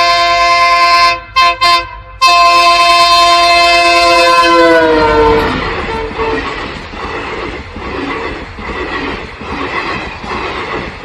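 Train horn sounding a long multi-note chord that breaks off briefly about a second in, then slides down in pitch and fades about five seconds in. It gives way to the steady rhythmic clickety-clack of train wheels running over rail joints.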